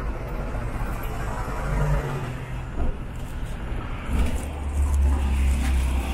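Truck bus engine rumble and road noise heard from a passenger's seat in the open-sided rear while it drives through traffic; the low rumble grows louder about four seconds in.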